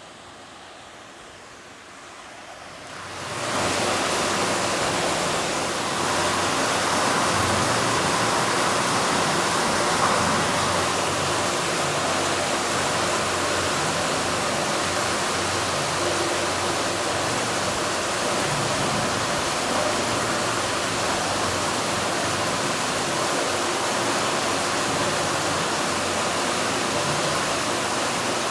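Sea waves as a steady rushing noise, swelling up over the first three seconds or so and then holding even, with no separate breakers standing out.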